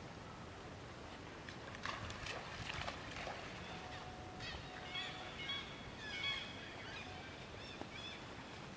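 Faint outdoor ambience with a scatter of short, high chirping calls in the middle few seconds.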